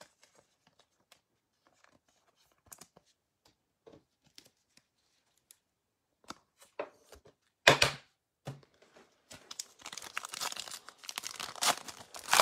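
Faint scattered clicks and rustles of a card being handled with a plastic card holder. Then, from about 8 seconds in, the foil wrapper of a trading-card pack is torn open and crinkled, with one loud crackle first and dense crinkling over the last few seconds.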